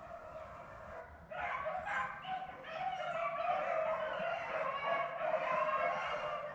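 A pack of beagles baying on a rabbit's trail, faint at first and then swelling into a loud chorus of overlapping voices about a second in. This is the sign that the dogs have jumped another rabbit and are running it.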